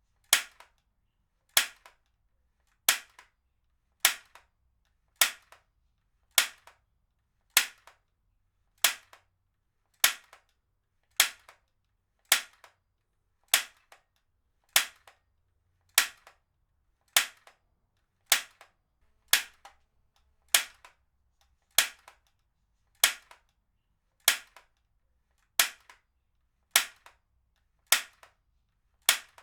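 Heavy-duty stapler being fired over and over, a sharp snap about every 1.2 seconds, each followed by a fainter click.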